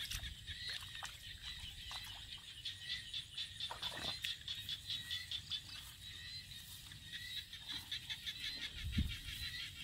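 A steady chorus of small calling animals in a rice field, rapid high chirps repeating many times a second without a break, over a low rumble. A single low thump comes about nine seconds in.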